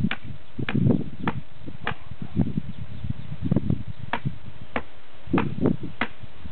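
Muscovy ducklings peeping in short, sharp chirps, roughly one every half second with a few pauses, over low rumbling noise.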